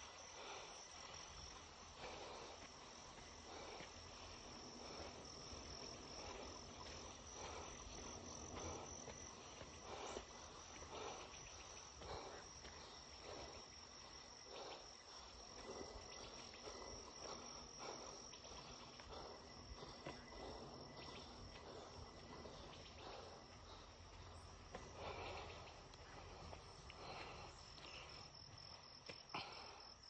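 Faint, steady high-pitched insect chirring, with soft footsteps on a dirt trail at a walking pace.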